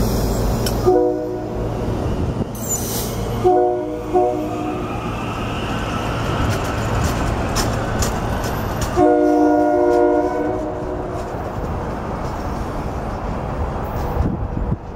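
Rotem Silverliner V electric train pulling away with a steady rumble, its Nathan K3LA chime horn sounding a chord of several tones: a short blast about a second in, two short blasts a few seconds later, and a longer blast of about a second and a half near the middle.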